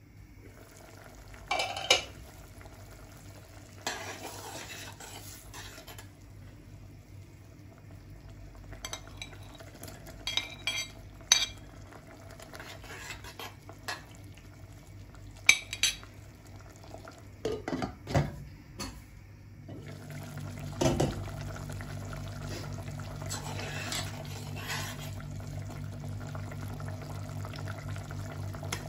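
A metal spoon stirring curry in a stainless steel pot, with scattered sharp clinks of the spoon and lid against the pot. A steady low hum runs underneath and grows louder about two-thirds of the way in.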